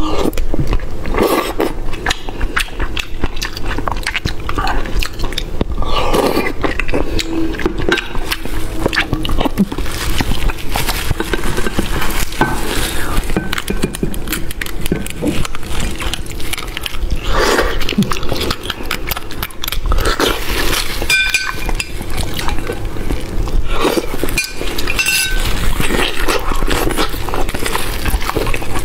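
Close-up eating sounds of spicy beef bone marrow: wet chewing and slurping of soft marrow and tendon, with a metal spoon scraping and clinking against the bone and the ceramic bowl.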